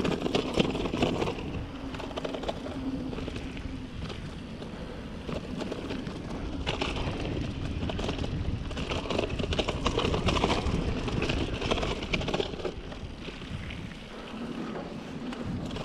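Mountain bike rolling along a dirt trail: tyre noise on the dirt, with constant small clatters and knocks from the bike over bumps, and wind buffeting the microphone.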